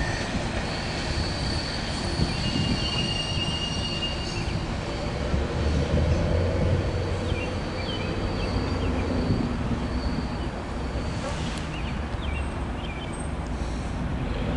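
Freight tank cars rolling past on steel rails, a steady rumble with wheels squealing in long high steady tones through the first half.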